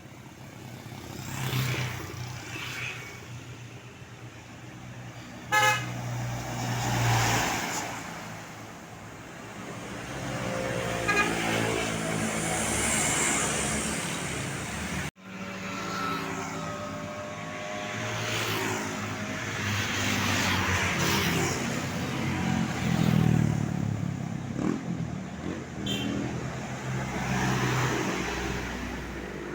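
Vehicles passing on a road, with tourist buses sounding multi-tone 'telolet' Basuri air horns that play chords of several notes. The horns come in a few stretches, about ten seconds in, in the middle and near the end.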